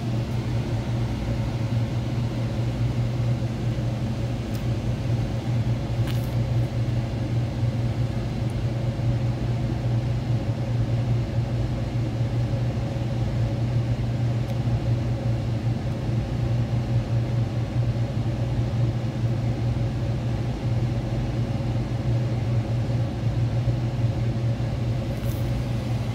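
ClimateMaster heat pump unit running with a steady low hum and a constant machine noise.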